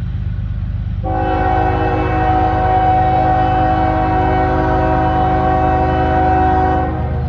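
GE ES44AC diesel locomotive's air horn sounding one long chord-like blast of about six seconds, starting about a second in and cutting off near the end, over the steady low rumble of the locomotive's diesel engine.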